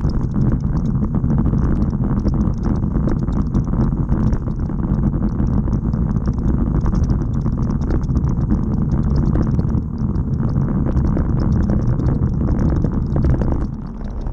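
Road-bike tyres rolling over a rough gravel-chip road surface: a loud, steady rumble with fine rattling from the camera and bike vibrating, easing briefly near the end.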